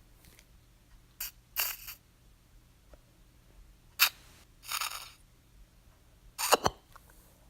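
Baby nasal aspirator sucking mucus from a nose: short, sharp suction bursts coming in three pairs, the last pair the loudest.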